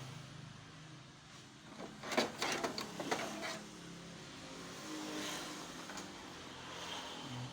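A quick run of clicks and rattles about two seconds in, lasting about a second and a half, as plastic parts of a Canon iR 6275 copier's document feeder are handled and fitted back together, over a steady low hum.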